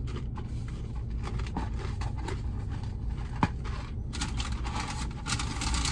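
Paper fry packaging rustling and crinkling as it is handled, with scattered clicks, denser from about four seconds in. A steady low hum from the car runs underneath.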